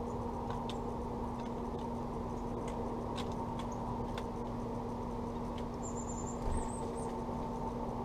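A male northern cardinal's beak clicking as it cracks seed in a clear acrylic window feeder, a run of sharp irregular clicks in the first four seconds. About six seconds in a high, thin bird call sounds for about a second, and a soft thump comes as the cardinal leaves the feeder, over a steady low hum.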